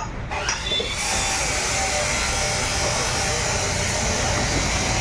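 A small motor or air-driven tool spins up with a short rising whine about a second in, then runs steadily with a loud, even whirring hiss.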